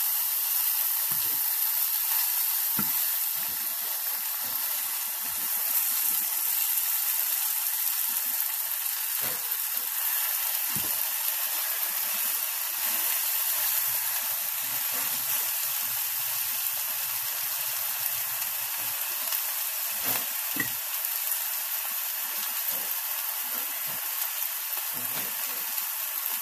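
Beef roast and sliced onions sizzling steadily in hot oil in a stainless steel frying pan, with a few light knocks of a spatula against the pan.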